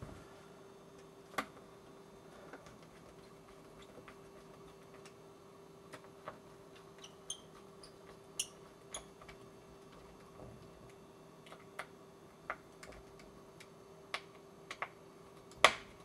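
Precision screwdriver clicking and ticking against small screws and the metal of an opened MacBook Pro as the drive hardware is screwed back in: sparse light clicks, a few with a short metallic ring, the loudest just before the end.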